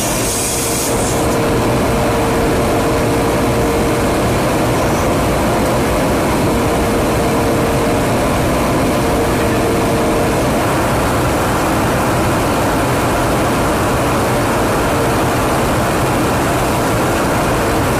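Steady drone of aircraft engines and rushing airflow in flight. A steady hum rides on it and stops a little past halfway.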